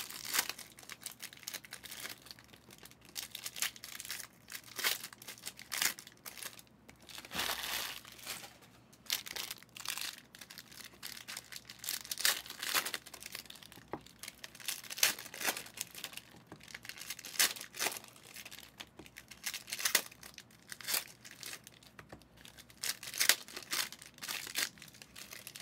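Foil wrappers of Panini Prizm football card packs crinkling and tearing open, with cards sliding and being flipped through in between. A long run of short, irregular rustles, one of the louder ones about seven seconds in.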